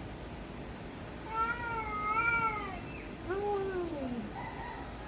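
Domestic cat meowing twice: a long wavering call, then a shorter one that falls in pitch, with a faint brief call after.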